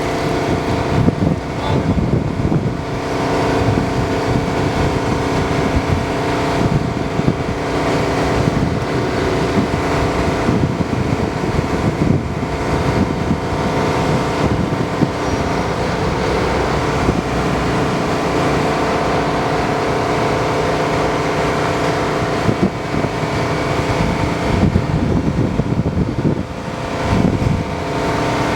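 Diesel engine of a Volvo EW160D wheeled excavator running steadily, with wind buffeting the microphone.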